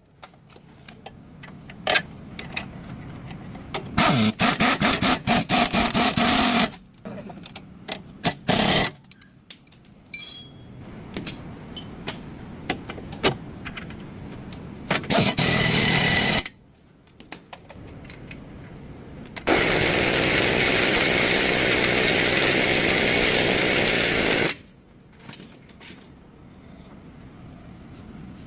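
Auto repair tool sounds: metal clinks and clicks between several bursts of a power tool. The longest burst is a steady one of about five seconds, in the second half.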